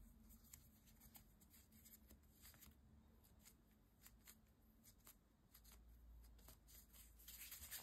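Near silence with faint soft rustles and ticks of hands pinching and folding bread dough closed into a ball.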